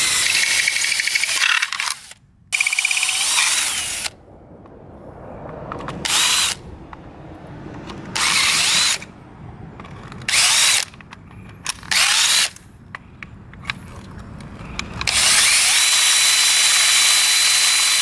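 Cordless drill drilling out the screws of a bike lock's plastic housing, running in repeated bursts with pauses between them, the last and longest about three seconds.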